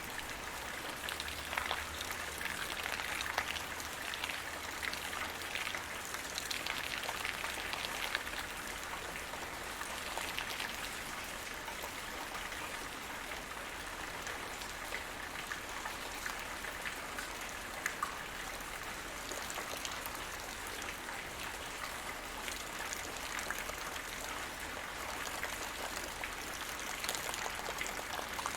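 Light rain shower, steady patter of raindrops hitting the ground, with scattered individual drops ticking louder now and then.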